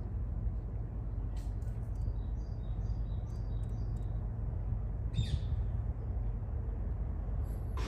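Small birds chirping in a run of short, high calls, with one falling call about five seconds in, over a steady low outdoor rumble.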